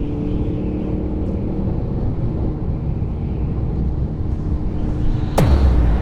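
Electronic background music: held synth notes over a low rumble, then near the end a fast falling sweep that drops into a deep bass hit.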